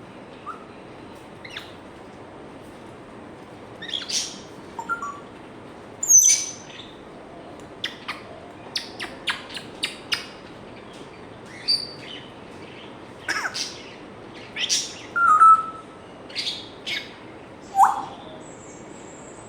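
African grey parrot calling: short, sharp chirps, clicks and brief whistles, some gliding in pitch, in irregular bursts with pauses between them.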